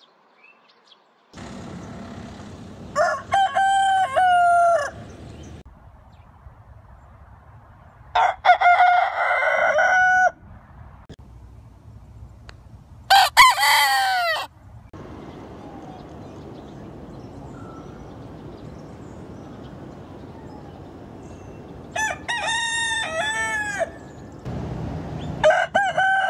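Roosters crowing, five crows of about two seconds each, one after another, with a steady quieter outdoor background between them. The first second or so is silent.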